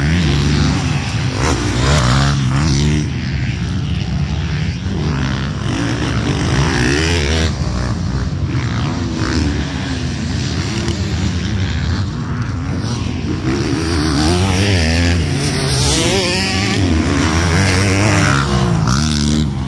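Motocross bike engines revving hard as riders pass on the track, the pitch climbing and dropping again and again with the throttle and gear changes, loudest at the start and again near the end.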